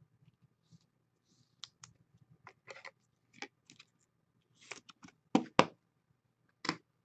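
Trading cards and a hard plastic card case being handled on a table: scattered light clicks and scrapes, with two sharp clicks close together about five and a half seconds in and another near the end.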